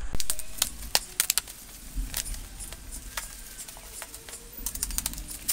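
Packaging crackling and clicking as a cardboard box is handled and opened: sharp, irregular crackles, thickest about a second in and again near the end.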